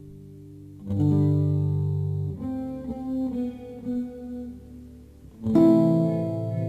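Guitar music: a chord rings and fades, a new chord is struck about a second in, a few single picked notes follow, and a louder strummed chord comes near the end.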